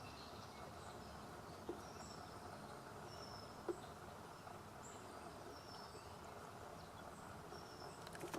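Faint outdoor ambience: a steady low background hiss with scattered short, high, thin chirps. Two soft taps stand out, the louder one about three and a half seconds in.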